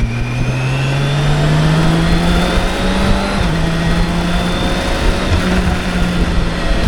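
BMW K1600 inline-six engine pulling under way, its pitch climbing, then stepping down slightly about three and a half seconds in and holding steady.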